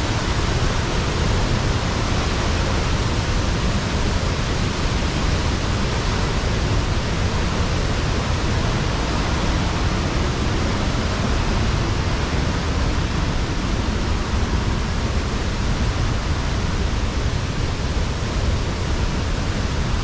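An 80-foot cascading waterfall rushing steadily, heard close by as a constant, unbroken noise of falling water.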